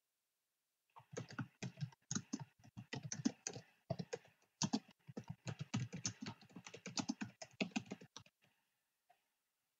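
Typing on a computer keyboard: a quick, steady run of keystrokes that starts about a second in and stops about eight seconds in.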